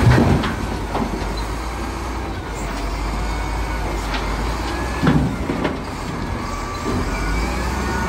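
XCMG wheel loader's diesel engine running as it tips a bucket of earth into a dump truck's steel bed, the load landing with a thud at the start and another about five seconds in.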